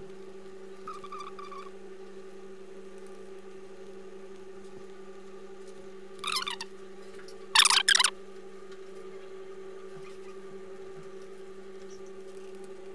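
A steady low hum, with a brief faint tone about a second in and a few short, loud noisy bursts about six and eight seconds in.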